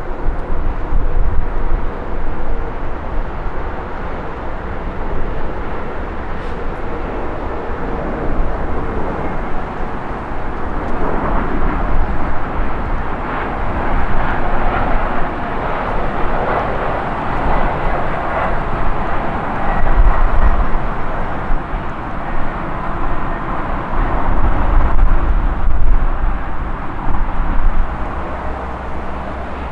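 Jet engines of a Bombardier CRJ regional airliner on final approach, a loud rushing noise with a faint steady whine that swells as it passes. There are low rumbling gusts later on.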